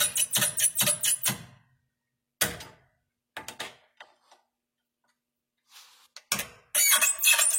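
Hand ratchet wrench clicking in quick runs, with pauses between, as a heated, seized fine-thread nut is turned off its bolt.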